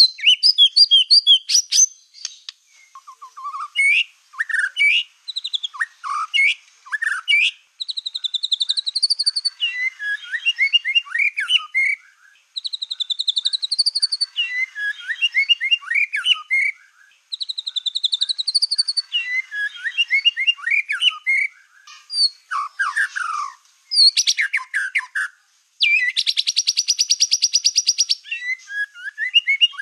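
Black-tailed white-rumped shama in full song: a loud, varied run of whistles, chirps and fast trills. A rising-and-falling whistled phrase comes back three times. Near the end a harsh buzzing rattle lasts about two seconds.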